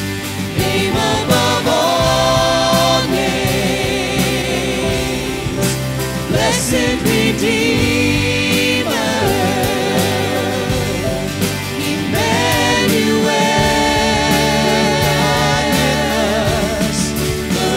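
Church worship band performing a contemporary worship song live: several voices singing together in long held notes with vibrato, over keyboard and band accompaniment.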